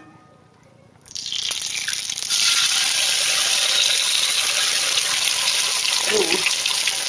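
Egg sizzling as it fries in olive oil in a hot cast iron skillet. The hiss starts about a second in, grows louder a second later, then holds steady.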